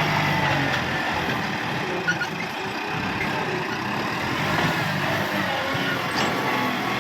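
Kubota MU5501 tractor's diesel engine running steadily.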